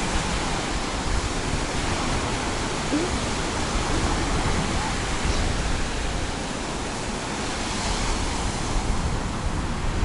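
Baltic Sea surf, waves breaking on the shore in a steady rush, with wind rumbling on the microphone.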